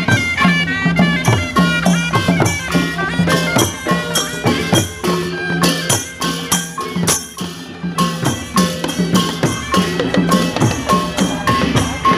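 Thai traditional procession band playing: a reedy pipe carries a quick stepping melody while long drums and hand cymbals keep a regular beat.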